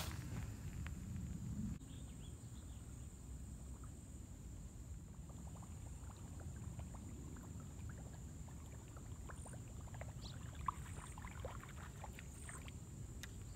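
Steady low wind rumble on the microphone outdoors, with faint scattered ticks and one sharper click near the end.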